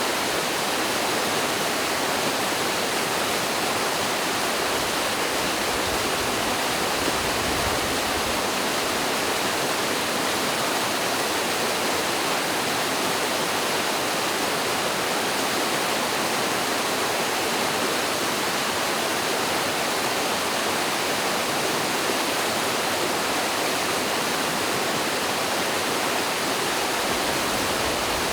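Mountain stream pouring over a small waterfall: a steady, even rush of water with no change in level.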